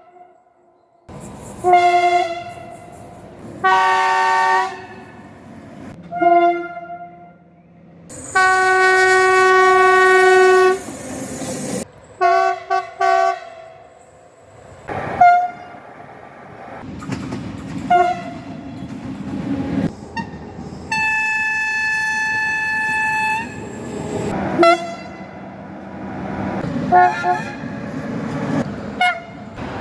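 Train horns sounding in a run of separate blasts, some short and some held for about two and a half seconds, at several different pitches. A low rumble of the running trains fills the gaps between blasts.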